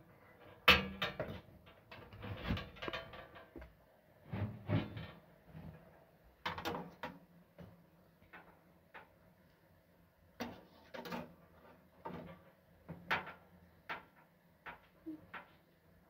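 Irregular metallic clanks and knocks from a sheet-metal wood stove as its door and the kettle inside are handled.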